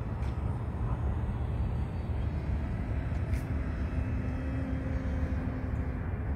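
Low rumble of wind on the microphone under the faint, steady drone of a distant FMS Pitts Special 1400 electric RC aerobatic plane's motor and propeller in flight, clearest from about three to six seconds in.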